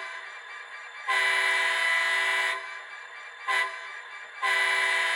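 Sound-decoder horn of a ScaleTrains SD40-2 model locomotive, played through its small onboard speaker: a multi-note chime horn giving a long blast, a short toot, then another long blast, the grade-crossing sequence. It sounds like a Burlington Northern horn.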